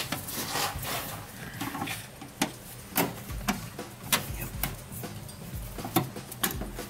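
Irregular sharp metallic clicks and light knocks, about a dozen, as the choke cable and throttle linkage are worked loose from a Holley 94 carburetor on a Ford flathead V8.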